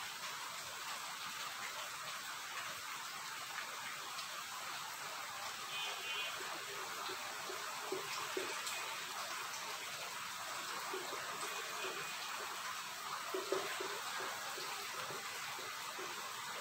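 Steady hiss of room noise, with faint squeaks and scratches of a marker writing on a whiteboard.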